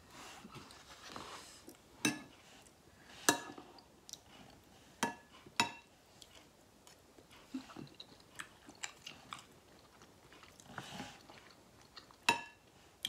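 A metal spoon clinking against a ceramic bowl of bakso aci soup, several sharp ringing clinks as it scoops and stirs, with soft chewing between them.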